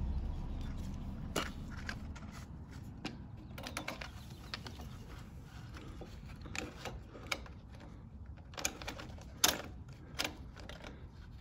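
Irregular light clicks and taps of metal and plastic parts as a carburetor, its gaskets and a plastic housing are worked onto the intake mounting studs of a Honda GCV160 lawnmower engine. The sharpest click comes about nine and a half seconds in.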